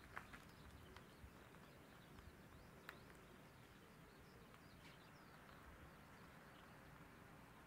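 Near silence: a low, even background with a few faint soft ticks and faint, short high-pitched chirps of distant birds.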